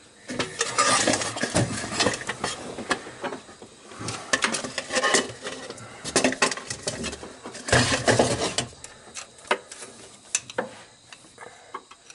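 A steel screwdriver clinking and scraping against the teeth of the 1953 Chevy engine's flywheel ring gear in irregular bursts as it is levered to turn the engine over; the engine is tight and does not turn.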